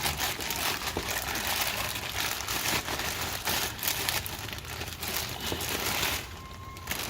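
Rustling and crinkling handling noise, as of packaging around a new wheel hub bearing being handled. It stops about six seconds in.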